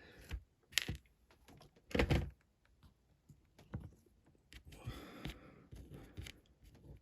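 Scattered light clicks and taps of tiny nuts and bolts and a diecast model car being handled on a workbench, with a short rustle about five seconds in.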